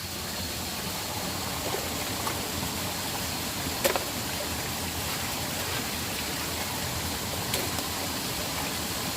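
Water rushing steadily over a small waterfall. There is a sharp knock about four seconds in and a fainter click later.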